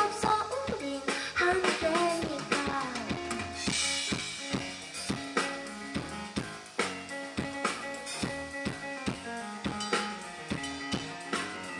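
Live pop band playing: a drum kit with bass drum and snare keeps a steady beat under Yamaha Motif XS8 keyboard chords. A sung vocal line trails off in the first few seconds, leaving an instrumental passage.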